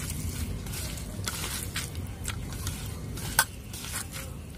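Small handling sounds of food preparation: a few soft clicks and scrapes over a low background rumble, with one sharper click a little past the middle.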